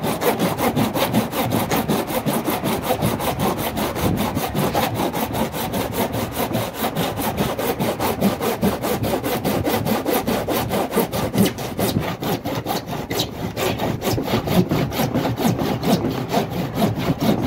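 Saw cutting through the hard plastic outer tub of an Ariston front-loading washing machine, in quick, even back-and-forth strokes.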